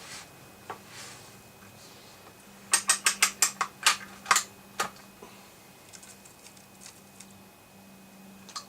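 Diana Model 54 side-lever air rifle being cocked: a quick run of about ten sharp ratcheting clicks lasting about two seconds, followed by a few faint mechanical ticks as it is readied to fire.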